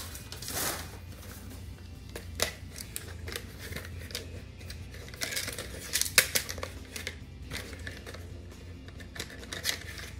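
Handling noise from a welding hood and its plastic headgear being lifted and turned in a cardboard box: scattered sharp plastic clicks and rustling, the loudest a quick pair about six seconds in, over background music.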